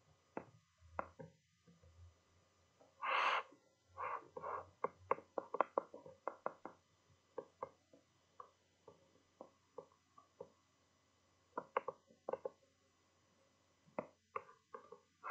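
Faint, irregular light knocks and clicks in clusters, with a brief rustle about three seconds in.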